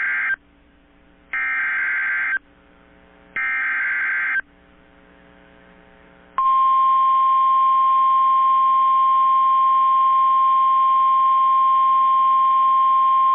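NOAA Weather Radio Emergency Alert System transmission: the end of one SAME digital header burst, a buzzy data warble, then two more, each about a second long and a second apart. About six seconds in, the loud steady 1050 Hz warning alarm tone begins. That tone marks a warning-level alert.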